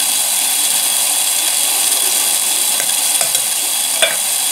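Water running steadily from a bathroom tap, with a light knock near the end.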